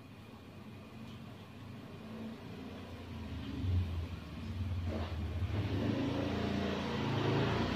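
A low rumble that swells over the last few seconds.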